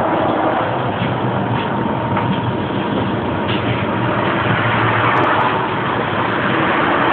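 Pesa 120Na tram standing at a stop with its doors open: the steady noise of its onboard equipment, with a faint steady whine, heard from inside the passenger compartment.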